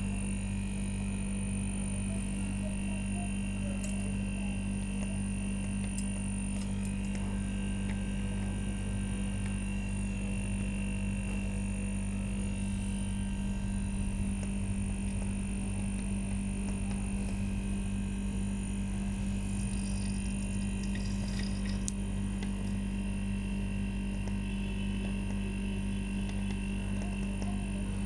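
Refrigerator compressor running with a steady, even electrical hum.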